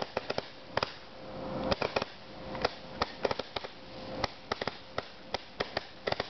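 A 196-shot firework cake firing: a rapid, irregular run of sharp bangs, several a second at times, with rising hiss swells building up before some clusters of reports.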